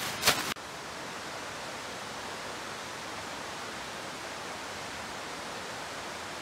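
A dark plastic tarp rustles sharply for a moment at the start, then a steady, even rush of flowing stream water runs on unchanged.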